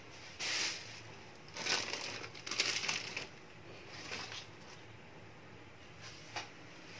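Plastic bags rustling and crinkling as bunches of leafy vegetables are handled and unpacked, in several short bursts, busiest between about one and a half and three seconds in.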